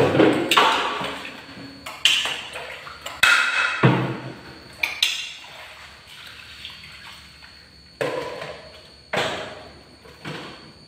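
A plate knocking and clattering on a tiled floor as a kitten and a monkey eat from it: about ten sharp knocks at uneven gaps, each with a short ring.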